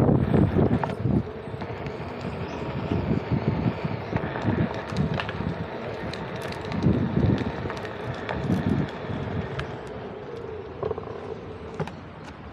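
Wind buffeting the microphone in gusts during a Onewheel ride, over a faint steady hum.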